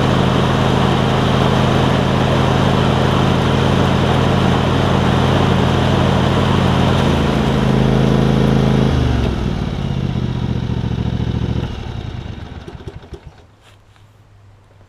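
John Deere LX277 riding mower's engine running steadily. It drops in speed about seven and again about nine seconds in, then is shut off and winds down about twelve seconds in.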